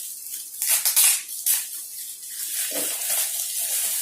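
Gift wrapping rustling and crinkling as a present is unwrapped. There are several sharp bursts in the first second and a half, then a steadier rustle.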